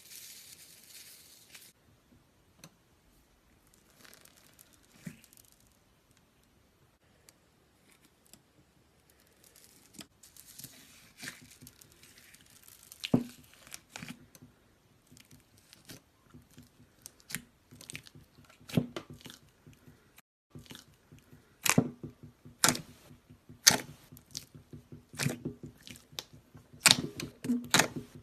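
Slime being pressed and squeezed by hand, giving sharp crackling pops and clicks as trapped air bursts. They start sparse and quiet, then come faster and louder through the second half.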